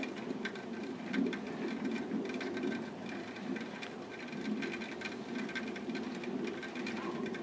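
Steady low outdoor background rumble with a faint high whine and a few light ticks.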